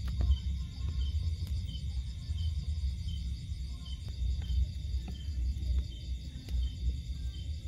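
Night insect chorus, with a cricket chirping steadily about twice a second over a continuous high-pitched trill. Underneath it runs a loud, uneven low rumble.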